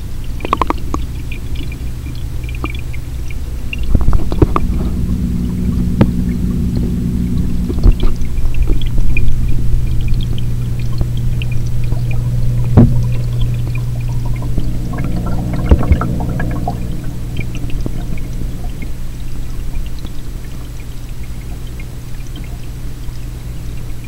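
Running, pouring water in a 100-gallon aquarium over a steady low hum, with scattered knocks and clicks; the sharpest knock comes about 13 seconds in.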